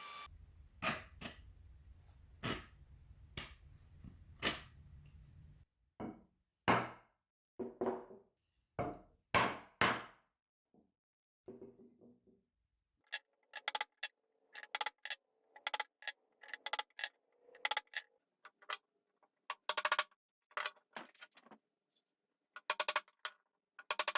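Wooden mallet striking a chisel while chopping mortises by hand. Sharp blows come about once a second at first, then a run of quicker, lighter taps in the second half.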